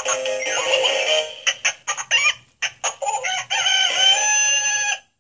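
Electronic voice of a 2004 Kids of America Corporation singing, dancing plush rooster toy. It ends a sung tune, gives a string of short clucks, then a long crow that cuts off abruptly near the end.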